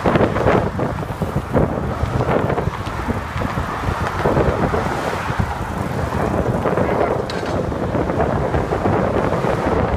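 Wind rushing and buffeting over the microphone of a camera moving with a cyclist, mixed with the steady noise of car traffic in the lanes alongside.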